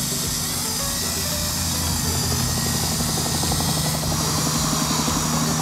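Attop YD711 Avatar toy radio-control helicopter hovering: its small electric motors whine and its rotors whir steadily, growing a little louder about two seconds in.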